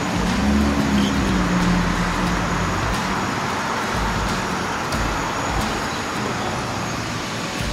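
Steady rushing roar of an outdoor gas burner under a wok of water at a hard boil.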